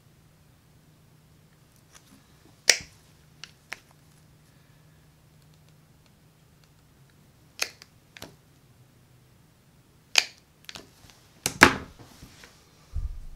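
Rotary leather punch pliers snapping through a leather strap as stitch holes are punched: sharp clicks every few seconds, some followed closely by a smaller second click. A dull thump comes near the end.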